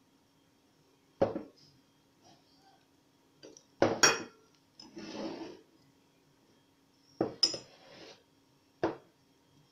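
Glass tumblers being lifted and set down on a table: a few sharp knocks and clinks of glass on the tabletop, with a short softer rustle between them.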